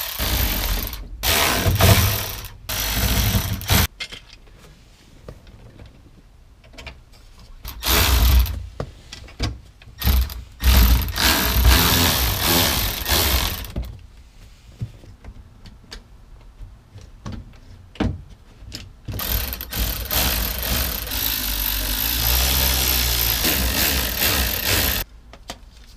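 Cordless electric ratchet running in several bursts, driving in screws; the longest run comes near the end.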